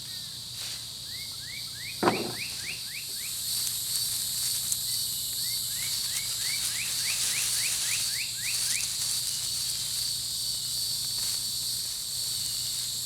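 Steady high-pitched buzzing of an insect chorus, with a bird calling two quick runs of short rising whistled notes, the second run longer. A single sharp knock about two seconds in.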